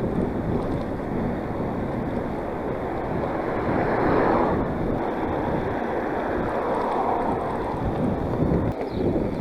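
Steady wind rush on the microphone of a riding mountain biker's camera, swelling a little about four seconds in.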